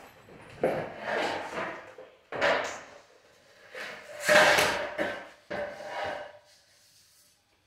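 Laminate flooring planks sliding and knocking against one another as they are sorted through and lifted from a pile: four short clattering, scraping bursts, the loudest about halfway through.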